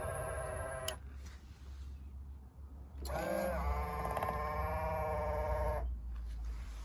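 Small electric motor of a power folding side mirror whining as it swings the mirror housing. It runs, cuts off about a second in, then after a pause runs again for about three seconds as the mirror swings back out to its open position.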